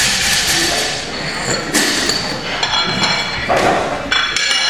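Barbell being reloaded: steel collars and bumper plates clanking and sliding on the bar sleeves, with about five sharp metallic clinks that ring briefly.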